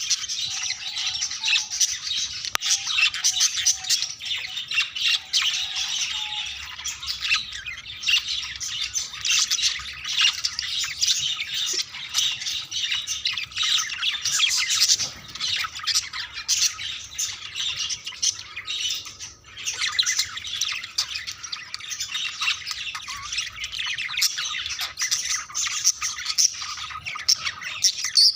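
Budgerigars chattering and warbling continuously, a dense mix of rapid chirps, squawks and scratchy calls, as budgies do when courting.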